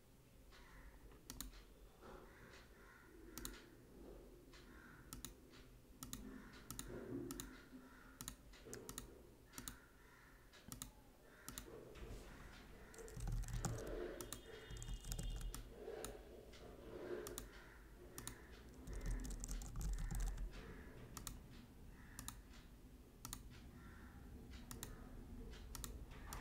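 Computer keyboard typing: separate keystrokes, irregularly spaced, with a couple of brief low rumbles near the middle.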